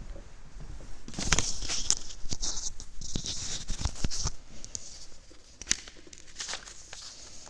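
Handling noise of a clip-on microphone being fastened to clothing: rustling, scraping and sharp clicks, dense for a few seconds, then quieter with a few single clicks.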